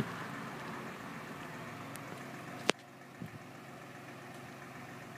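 Steady low hum of an idling engine in the background, with a sharp click at the start and a louder one a little past halfway, after which the background is quieter.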